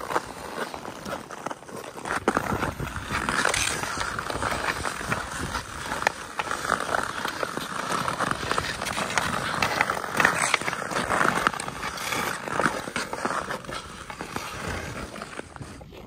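Ice-skate blades scraping and carving across rough outdoor lake ice, with a scatter of sharp clicks from hockey sticks on the puck and ice.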